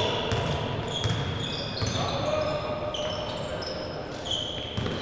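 Basketball sneakers squeaking on the court floor in many short, high squeaks as players cut and stop, with the ball bouncing on the floor. Both are heard in a large gym hall.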